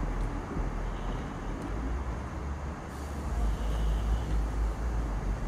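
Steady low outdoor rumble with a hiss of noise over it, loudest in the deep bass and swelling and easing.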